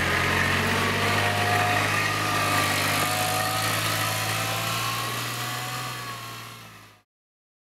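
Kubota utility vehicle's engine running steadily as it drives off, fading out near the end.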